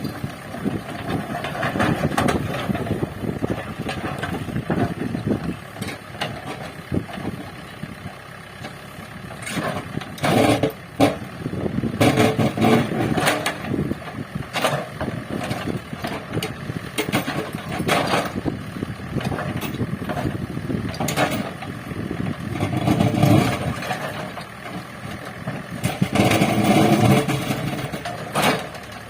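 Heavy machinery engine running on a demolition site, with repeated knocks and crashes of debris over it and louder crashing stretches at about ten, twenty-three and twenty-seven seconds in.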